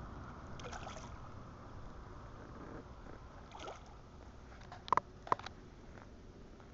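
A bass splashes at the water's surface near a fly: short splashes about a second in and again near four seconds, then two sharp clicks a third of a second apart about five seconds in, over a steady low rumble of water and wind.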